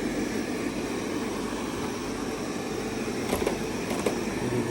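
Xiaomi Robot Vacuum Mop Essential running steadily, its suction motor and brushes humming, with two short clicks about three and four seconds in.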